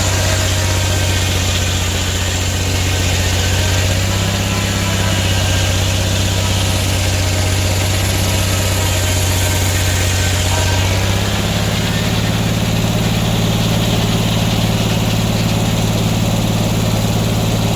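Sawmill engine running steadily under load while the blade cuts a two-inch slab from a black oak log. The engine note shifts about eleven seconds in.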